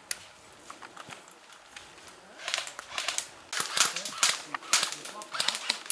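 Airsoft guns firing: a flurry of sharp cracks and clicks in irregular bunches, starting about halfway through, with faint voices.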